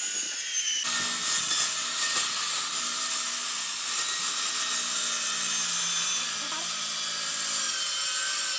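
A diamond-blade concrete wall-cutting machine runs through reinforced concrete, giving a steady high-pitched whine over hiss. The sound shifts abruptly a little under a second in, after which a low hum sits under the whine.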